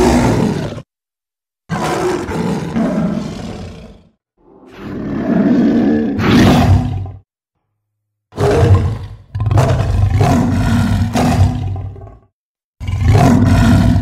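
A string of about six big-cat roars from a sound-effect werelion, a creature voice mixed from lion and other big-cat recordings. Each roar stops abruptly before a short, dead-silent gap, and the third swells up to its loudest before cutting off.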